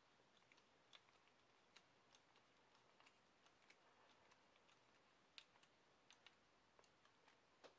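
Faint, irregular small clicks and ticks of a hand screwdriver turning a small screw into the plastic transfer-case housing of an MST CFX-W 1/8 crawler kit, with a sharper click a little after five seconds and another near the end.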